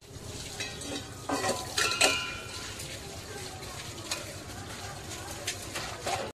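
A few light clinks and knocks in the first two seconds, over a steady hiss of background noise.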